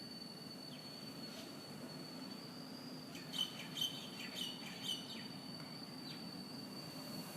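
A steady, high-pitched whirring whine, like a kettle's whistle, holding one pitch over a low background hum; its source is unidentified, and it is described as extremely loud and coming from everywhere. Birds chirp briefly about three to five seconds in.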